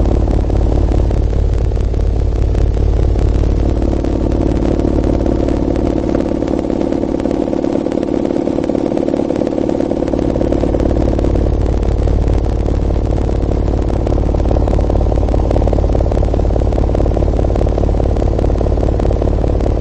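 A pair of 12-inch Orion HCCA12.2 subwoofers playing a steady, deep bass drone with buzzy overtones while running in free air at large cone excursion. The deepest part of the drone weakens for a few seconds midway.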